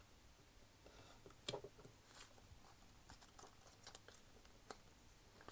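Faint scratching of a hobby knife cutting through a sheet of paper, with light paper rustling and a few sharp ticks, the clearest about one and a half seconds in.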